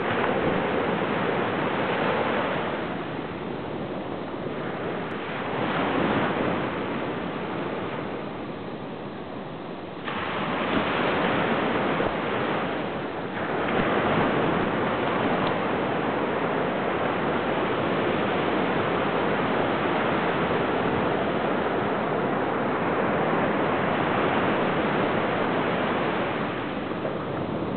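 Ocean surf breaking and washing up a sandy beach: a continuous rush of waves that swells and eases every few seconds as each wave runs in over the sand.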